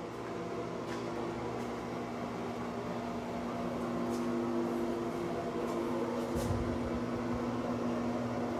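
Steady machine hum, a low drone with a couple of constant tones, growing slightly louder about four seconds in, heard in a small tiled bathroom. A few faint ticks and one soft low thump about six and a half seconds in.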